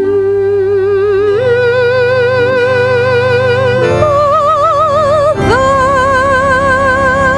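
A hummed 'mmm' held in long notes with vibrato, stepping up in pitch twice and then sliding to a new note, over steady low held chords.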